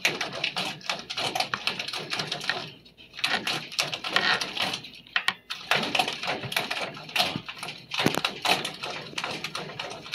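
Toothbrush bristles brushed quickly over a cat's face and chin fur, making a fast run of scratchy brushing strokes. The strokes stop briefly about 3 seconds in and again about 5 seconds in.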